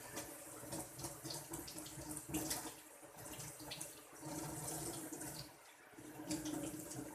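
Water running from a kitchen tap into a sink. The flow is uneven and mixed with small clicks and knocks.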